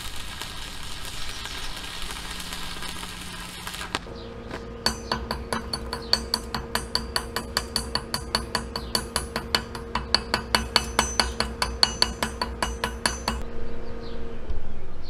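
Arc welding a steel pipe cap, a steady crackling hiss for about four seconds. Then a chipping hammer taps around the fresh weld bead to knock off the slag, about three or four sharp metallic taps a second, stopping shortly before the end.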